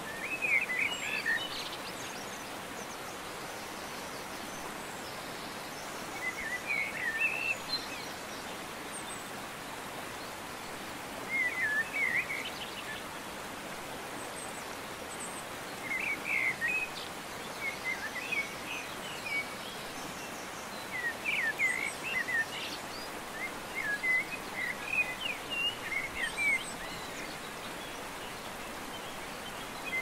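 Wild birds calling in short quick phrases of high chirps, first a few seconds apart and then more often, over a steady background hiss.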